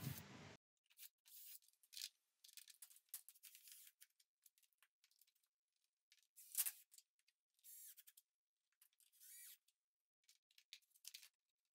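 Near silence with faint, scattered high-pitched clicks and ticks; one slightly louder click comes about six and a half seconds in.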